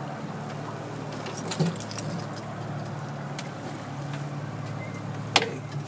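Boat motor running steadily as a low hum, with a few light clicks and rattles about a second and a half in and one sharp click near the end.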